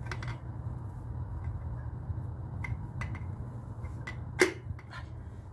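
Scattered metal clicks and knocks as a piston and connecting rod are worked out of a MerCruiser 3.0-liter engine block by hand, the sharpest knock about four and a half seconds in, over a steady low hum.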